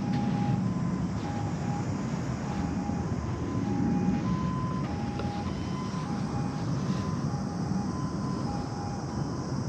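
A steady low rumble, with short electronic-sounding beeps at two alternating pitches coming about once a second.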